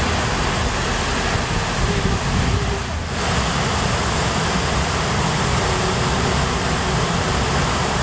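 Waterfall pouring into its plunge pool: a loud, steady rush of water, dipping briefly about three seconds in.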